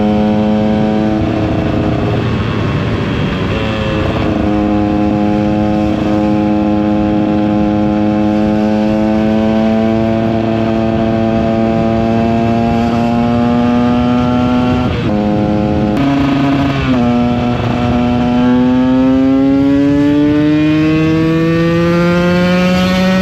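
KTM 125 EXC's single-cylinder two-stroke engine running under load, its pitch creeping up and dropping at a few gear changes, then rising steadily near the end as the bike accelerates. The engine runs without a stutter, with wind rushing over the microphone.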